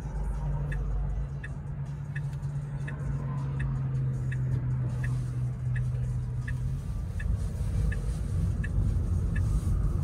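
Turn-signal indicator in a Tesla Model 3 ticking steadily, about three ticks every two seconds, over cabin road noise. A low steady hum stops about two-thirds of the way through, and the road noise grows louder toward the end.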